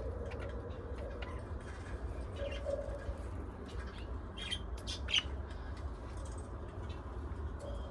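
Pet budgerigars and lovebirds chirping in short calls, a cluster of them about four to five seconds in, over a steady low hum.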